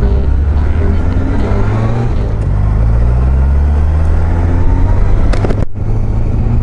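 Honda CBR1000F's inline-four engine accelerating, its pitch climbing steadily, over a constant rush of wind and road noise. The sound drops out for a split second about two-thirds of the way through, then the engine carries on.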